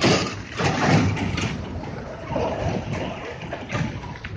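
Passing traffic on a bend: a Fuso concrete mixer truck's diesel engine running as it comes on, with a motorbike going by close at the start, the loudest moment, over steady road noise.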